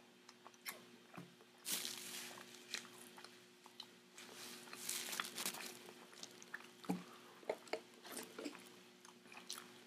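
Close-miked chewing and mouth sounds: soft crunches, wet smacks and clicks of the lips and tongue. A napkin rustles against the mouth about four seconds in, and there are sips through a drinking straw near the end.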